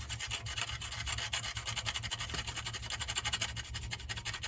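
Water heater flame sensor being scrubbed clean by hand with an abrasive, quick back-and-forth rubbing strokes, several a second, over a steady low hum.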